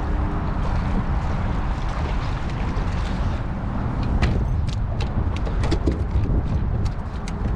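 Steady low rumble and hiss of wind and water around a small boat on rough water. From about four seconds in, a run of sharp knocks and taps on the boat, coming faster toward the end.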